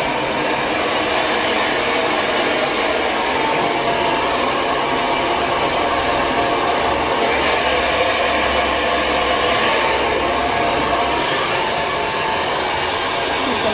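Lange Soleil hair dryer running steadily, a continuous rush of air.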